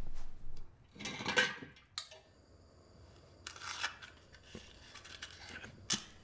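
Small handling sounds as a drink is made: rustles and light clicks, with one sharp ringing clink about two seconds in.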